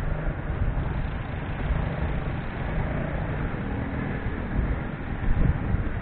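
Steady road-vehicle noise: a low rumble with a few louder swells about five seconds in.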